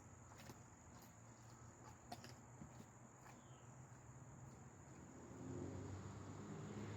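Quiet outdoor night sound: a steady high cricket trill, with a few faint clicks and a low hum coming up over the last two seconds.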